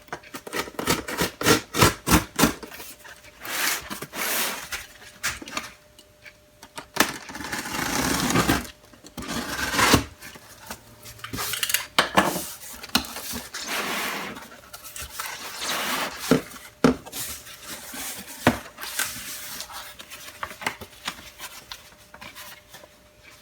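Cardboard box and packing being handled and opened: irregular rustling and scraping with many sharp clicks and knocks.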